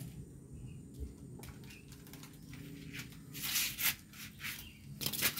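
A plastic bag crinkling and rustling in short bursts, loudest about three and a half seconds in and again near the end.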